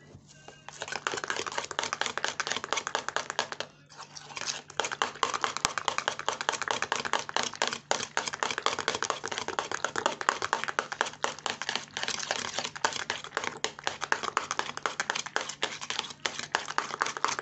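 Gloved hand stirring thick, sticky lotion in a bowl: a rapid, continuous wet clicking and squelching, with a brief pause about four seconds in.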